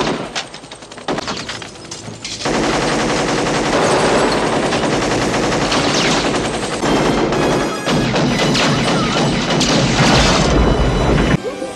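Film shootout: scattered gunshots for the first couple of seconds, then loud, sustained automatic gunfire. It cuts off sharply near the end.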